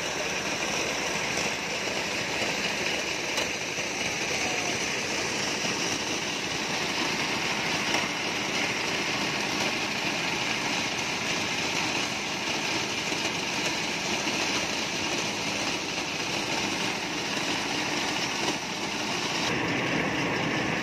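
Engine-driven corn sheller running steadily, a continuous unbroken machine noise.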